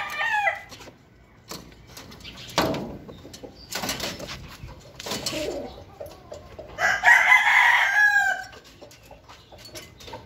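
Rooster crowing: the tail of one crow right at the start, then a full crow of about a second and a half some seven seconds in. A few brief noises come between the two crows.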